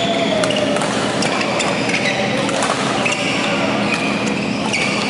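Badminton rally: repeated sharp racket strikes on the shuttlecock and brief squeaks of shoes on the court floor, over a steady background hum in a large hall.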